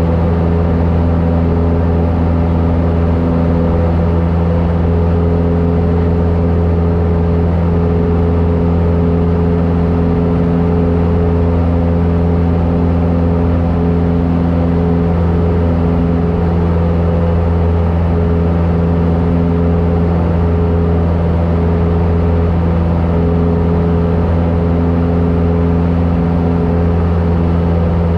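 Steady drone of a Cessna airplane's engine heard inside the cabin, loud and unchanging, with a few held tones running through it.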